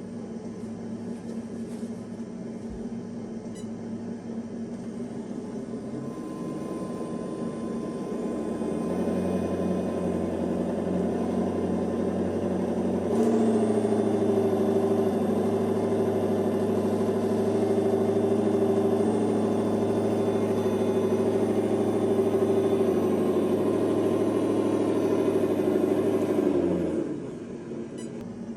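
Brushless Puller Pro V2 2700kv motor and geared drivetrain of a TRX-6 6x6 RC crawler running at steady low speed: a steady motor whine over a low hum. It steps up in pitch and loudness about a third of the way in and again near the middle, then stops shortly before the end.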